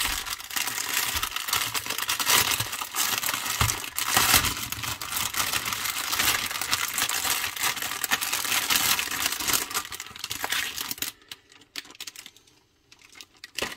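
Clear plastic packaging crinkling and rustling as a long sleeve of bagged resin diamond-painting drills is handled and pulled open, with many small clicks. It stops about eleven seconds in, leaving only a faint tap near the end.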